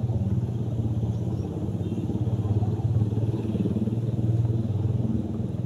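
An engine running steadily, its low hum swelling and easing every second or so.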